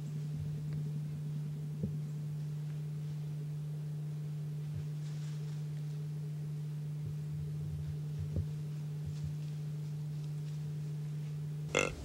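Steady low electrical hum with faint overtones, and a sudden loud call cutting in right at the end.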